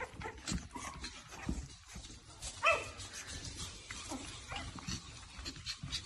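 Puppies playing and mouthing a hand, with rustling and scrabbling throughout and one short high yip about two and a half seconds in.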